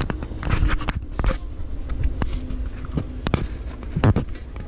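Irregular clicks, knocks and scrapes of the camera being handled close to the microphone, over a low steady rumble of the train.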